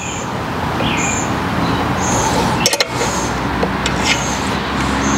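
A motor vehicle running nearby, with engine noise that has grown loud and then holds steady. A short high chirp repeats about once a second, and a few sharp clicks come near the middle.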